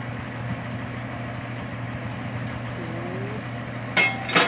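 Heavy construction machinery engine running steadily, with two sharp metallic knocks less than half a second apart near the end.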